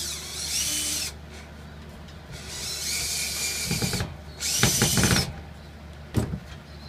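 Cordless drill/driver running in three short bursts, its motor whine rising as it spins up each time, driving screws to fix an exhaust fan's mounting into a plywood wall. Low knocks come as the later runs end, and there is one sharp knock about six seconds in.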